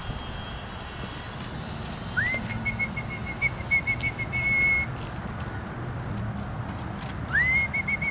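A person whistling twice, each time with a quick upward slide into a warbling held note, the first about two seconds in and the second near the end. The whistle is the signal that calls a pet mink to bring her caught fish.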